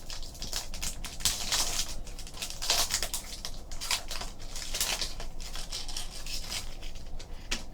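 Trading cards being handled: irregular light scrapes, rustles and clicks of card stock sliding against card and packaging.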